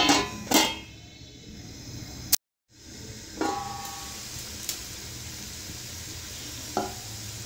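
A metal pot lid clanks twice with a ringing tone as it is lifted off the pot, then the sound cuts out briefly. After that a large pot of water and vegetables bubbles steadily at the boil, with a ringing metal clink about three and a half seconds in and a lighter one near the end.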